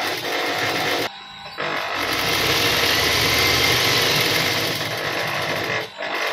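Juki industrial sewing machine running as it stitches a seam through fabric, in bursts: about a second, a short pause, a longer run of about four seconds, then starting again just before the end.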